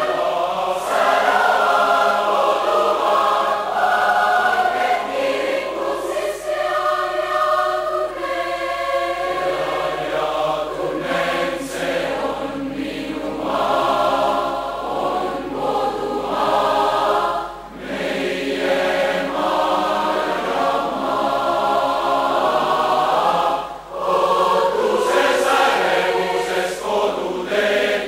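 Massed mixed youth choir singing a cappella in Estonian, holding full sustained chords, with two brief breaks between phrases in the latter half.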